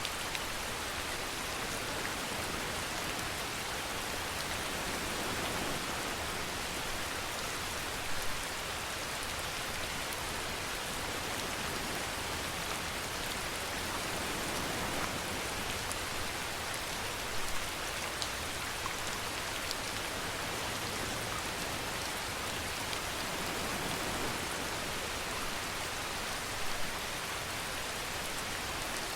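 Steady rainfall hissing evenly on a surface, with a few louder drop ticks now and then.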